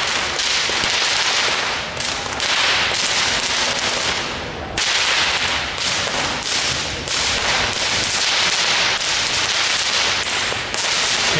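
Two whips, one in each hand, cracked in a fast, steady run of sharp cracks, about three a second, as a two-handed whipcracking routine. There is a brief lull about four and a half seconds in.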